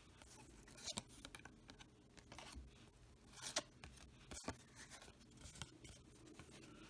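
Faint rustling and scraping of baseball cards being handled and slid apart, with a few short, soft scrapes and clicks.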